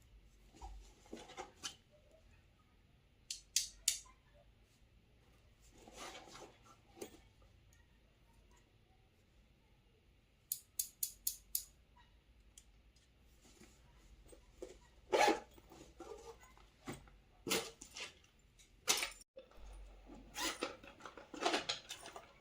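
Toy packaging being handled during an unboxing: scattered clicks, taps and short rustles of plastic and cardboard. A quick run of about six clicks comes about halfway through, and the handling gets busier near the end.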